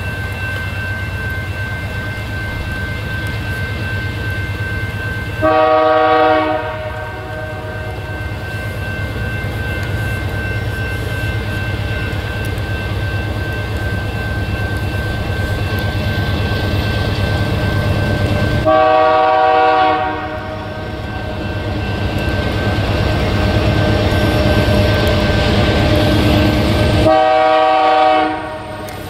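Air horn of an approaching locomotive sounding three separate blasts of a second or so each: about six seconds in, again about thirteen seconds later, and once more near the end. Under them runs a steady low rumble.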